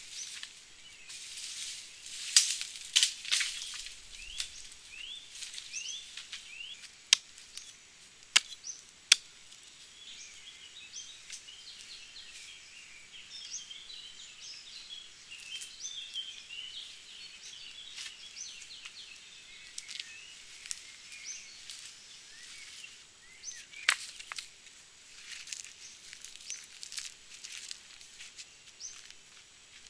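Small birds chirping busily throughout, over dry leaf litter rustling. Every so often wooden branches crack and knock sharply as they are dragged and set down, with several of these in the first ten seconds and another near the end.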